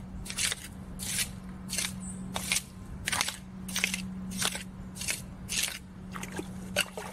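Steel blade of a Shed Knives 2022 Spearpoint fixed-blade knife scraped repeatedly through wet sand and grit in shallow water, deliberately dulling the edge. About eleven rasping strokes, roughly one every two-thirds of a second, growing fainter near the end.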